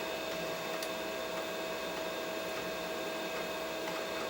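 A running desktop PC whirring steadily, its fans and hard drive giving an even hum with a constant tone.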